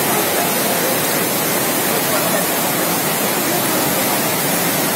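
Steady rush of a swollen monsoon flood torrent, muddy floodwater pouring past, mixed with heavy rain.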